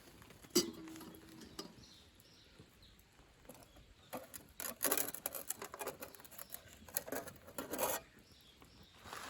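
A single sharp clink about half a second in that rings briefly, then a busy run of clicks, clatter and rustling from about four to eight seconds in: objects being handled.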